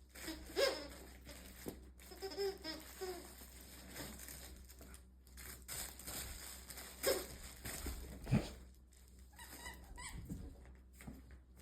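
A puppy making a few faint, short whimpers and grunts, with small knocks of movement in between.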